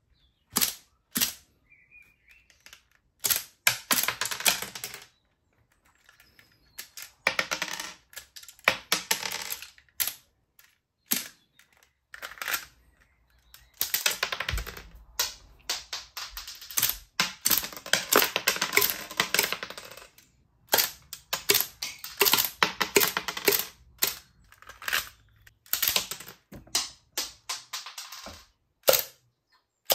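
LEGO rubber-band pistol's plastic slide and trigger mechanism clacking as it cycles, in several bursts of rapid clicks a few seconds long, with single clicks between them as the slide is worked by hand.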